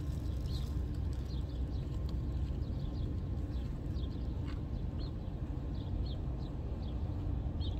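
Faint, short, high chirps from small birds, one or two a second, over a steady low outdoor rumble.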